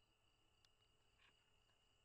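Near silence: faint night ambience with a steady high insect trill and two short animal calls, about half a second apart.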